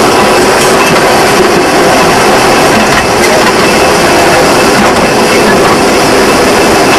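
Seaton Tramway narrow-gauge electric tram running along the track, heard from inside its wooden saloon: a loud, steady rumble and rattle of wheels on rail and body.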